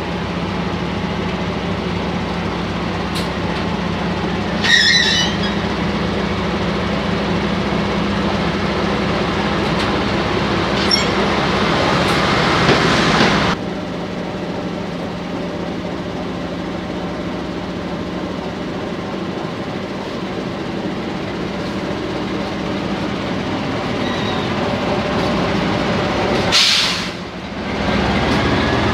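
SU42 diesel shunting locomotive's engine running steadily as it moves past at low speed, with a brief squeal about five seconds in. About halfway through the sound drops suddenly and the locomotive's engine runs on more quietly, with a short loud hiss near the end.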